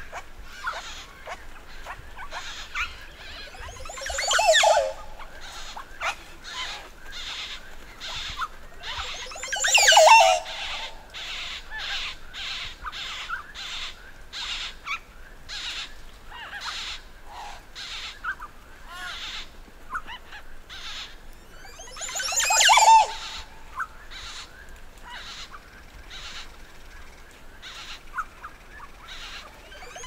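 A flock of Montezuma oropendolas at a nesting colony giving display calls: three loud calls of about a second each, full of sliding pitches, and a continual scatter of short sharp calls from the other birds between them.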